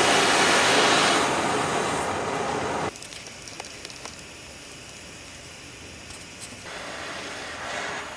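Gas torch flame hissing loudly, cutting off abruptly about three seconds in; a softer torch hiss starts again near the end. The torch is heating rusted exhaust manifold bolts to free them.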